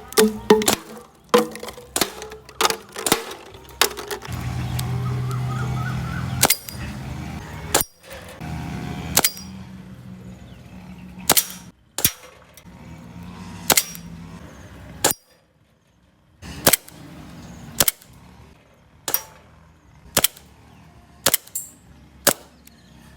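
Airsoft pistol, a WE Hi-Capa 5.2 gas-blowback converted to run on compressed air from an HPA tank, firing a long string of single shots as sharp cracks: quick at first, then about one a second. A low hum runs under some of the shots partway through.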